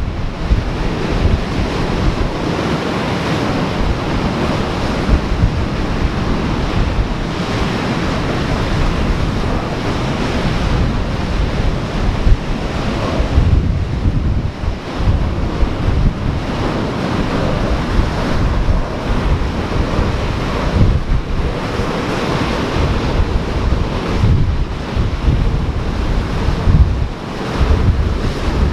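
Ocean surf washing in steadily while wind buffets the microphone in irregular low gusts.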